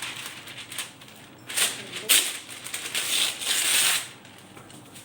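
Sheet of baking paper crinkling and rustling as it is handled, in two louder spells, about a second and a half in and again around three seconds in.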